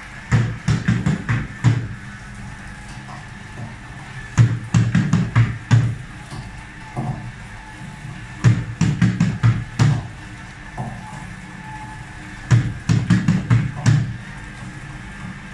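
Hard-shell suitcase wheels clattering over the raised strips of a luggage test machine's moving belt, in four bursts of rapid knocks about 4 seconds apart, as the obstacle on the belt comes round again. Between bursts the rig's belt motor runs with a steady hum.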